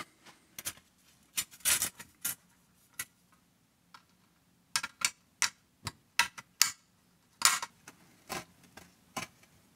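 A metal bus-bar terminal block and a scrap sheet-metal mounting plate being handled, making irregular sharp clicks and clinks of metal on metal in loose clusters.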